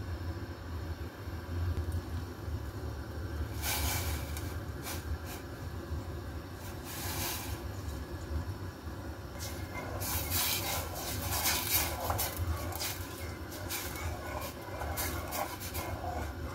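Silicone spatula stirring and scraping in a stainless steel saucepan of laksa broth, in quick irregular strokes from about ten seconds in, with a few brief rustles about four and seven seconds in as coconut cream goes into the pot. A steady low hum runs underneath.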